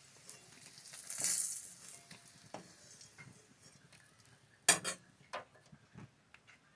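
Fried green-banana pieces lifted out of a kadai with a metal spatula: a short hiss of hot oil about a second in, then scattered clinks and knocks of the spatula, the loudest a little under five seconds in.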